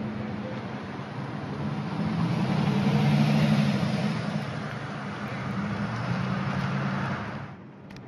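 Heavy diesel machinery running with a low engine drone and a broad rushing noise, swelling louder a few seconds in and cutting off suddenly near the end.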